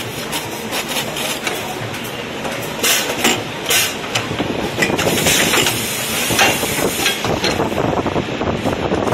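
Pneumatic heel nailing machine cycling: several short hisses of compressed air over a steady mechanical clatter, a little louder in the second half.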